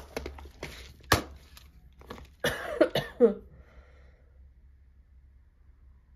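Clear plastic compartment box of plastic safety eyes handled and set down on a table: three sharp plastic clicks and knocks, the loudest about two and a half seconds in.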